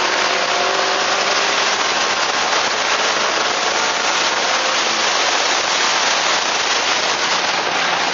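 Loud, steady rush of wind and road noise on the camera's microphone as the Suzuki Swift Sport drives at speed, with its engine faint underneath.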